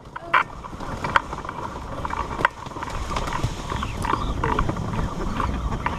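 Hot air balloon basket pushing down through the branches of a desert tree: twigs scraping and rustling against the basket, with scattered sharp snaps and cracks.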